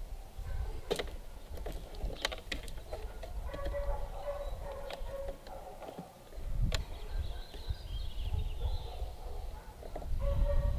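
Scattered sharp clicks and taps of small plastic and metal parts being handled while a servo linkage inside an RC boat's radio box is adjusted, over a low rumble.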